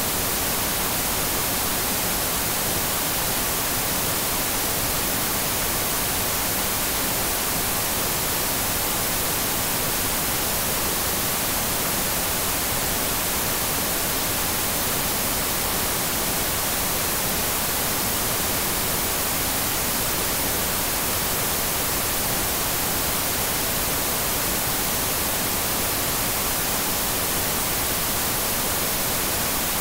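TV static: a steady, even hiss that never changes, strongest in the high end.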